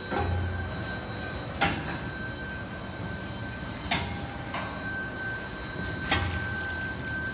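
Automatic glove packing and wrapping machine running: a steady mechanical hum with a thin steady whine, broken by a sharp clack about every two and a quarter seconds as the machine cycles, three times.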